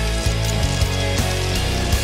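Background rock music with drum hits over sustained guitar chords.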